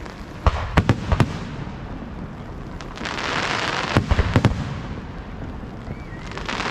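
Aerial fireworks shells of up to 75 mm bursting: a quick run of sharp bangs about half a second in, another cluster around four seconds, and a loud hiss between the volleys and again near the end.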